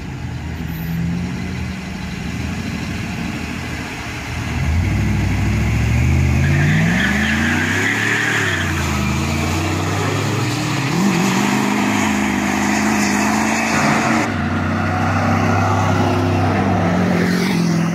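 Car engine steady at first, then accelerating hard from about four seconds in, its pitch climbing and dropping back at a couple of gear changes before holding at a steady cruise.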